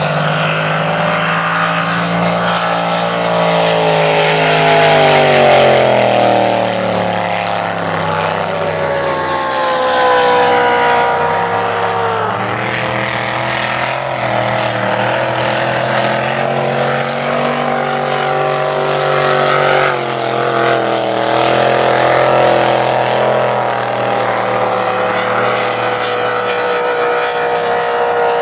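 Racing inboard powerboat engine at high revs as the boat runs at speed on the course. The pitch sweeps up and down with throttle and the boat's passes, dropping sharply twice, about twelve and twenty seconds in.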